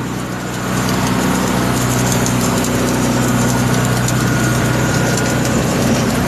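Engine running steadily at idle, its hum stepping up in level about a second in and then holding even, with a faint steady high whine above it.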